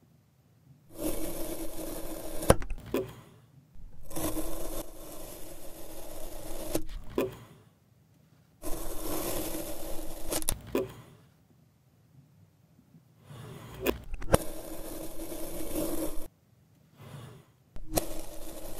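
Kinetic sand being cut and squished: a gritty scraping in several separate stretches of a few seconds each, with sharp clicks now and then and short quiet gaps between the stretches.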